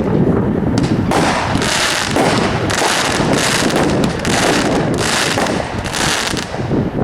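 Legend "Gold Bomber" 500-gram consumer fireworks cake firing. From about a second in, a quick series of shots and bursts comes about twice a second.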